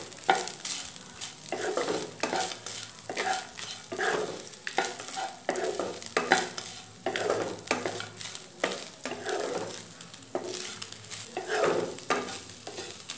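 Spatula stirring and turning cooked rice in a speckled non-stick kadai, mixing the salt through: repeated short scraping strokes against the pan, a little more often than once a second.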